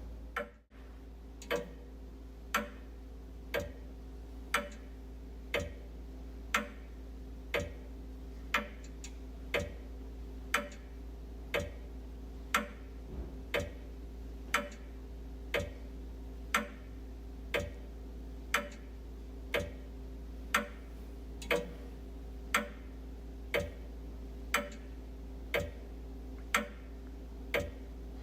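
Wall clock ticking steadily, about one tick a second, over a faint low hum.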